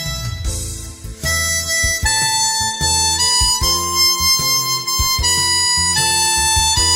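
Harmonica playing a slow melody of long held notes, stepping from pitch to pitch over a low accompaniment. The melody breaks off briefly, with a breathy hiss, about half a second in.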